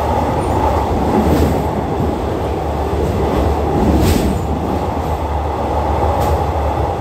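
Steady running rumble of a State Railway of Thailand rapid-train passenger coach at about 75 km/h, heard inside the coach through an open window. A few brief sharp clicks come through it, about a second in, near the middle and near the end.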